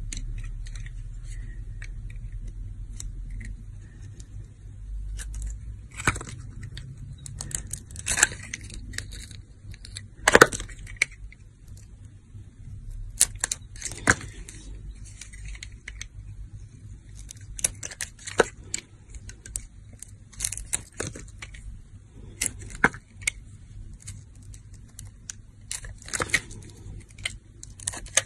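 A knife blade carving a bar of glitter-coated soap: irregular short, crisp scrapes and crackles as the blade shaves off the glittery surface and cuts chunks out of the bar.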